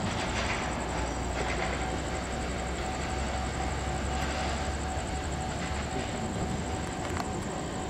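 Rear-mounted turbofan engines of an Embraer ERJ-family jet running at low power: a steady whine over a low rumble.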